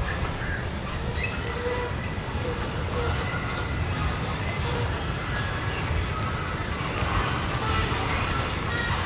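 A train running on nearby tracks, a steady low rumble with a few short, thin squeals over it.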